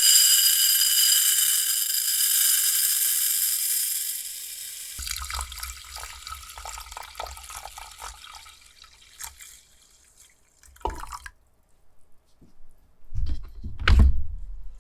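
Kitchen tap running into a sink at full flow for about five seconds. The flow then drops to lighter splashing and dripping as something is rinsed under it, stopping about eleven seconds in. A couple of dull thuds follow near the end.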